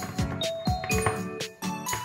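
Cheerful background music: a bell-like melody over a steady kick-drum beat.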